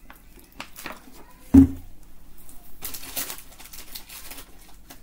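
Handling noise as a plastic water bottle and other things are moved about: light knocks and rustling, with one loud thump about a second and a half in and a short crackle about three seconds in.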